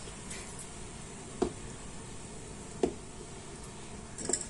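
Grated carrot being pressed and tipped into an aluminium pressure cooker by hand: quiet handling with two light clicks about a second and a half apart, and a brief run of small clicks near the end as a bowl is tipped over the cooker.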